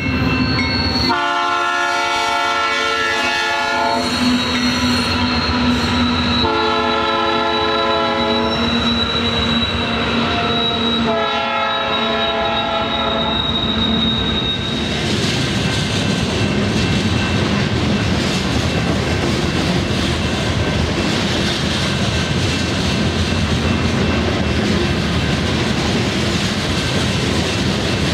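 BNSF diesel locomotive's air horn sounding for a grade crossing in three long blasts over the first half. Then a train of loaded rock hopper cars rolls past with a steady rumble and wheel clatter.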